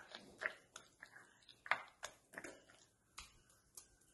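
Hands working wet chilli masala paste into pieces of fish in a plastic tray: a string of soft, irregular wet clicks.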